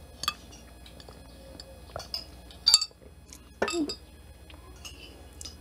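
A few separate light clinks and clicks of a drinking glass with a metal straw being sipped from and handled, the two loudest about halfway and two-thirds of the way in.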